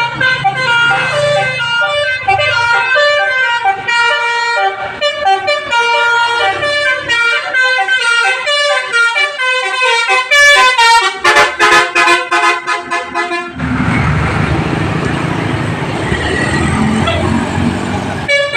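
Bus telolet horn with a Basuri module playing a quick melody of multi-tone horn notes, breaking into rapid stuttering blasts about ten seconds in. For the last five seconds a loud, even rushing noise takes over.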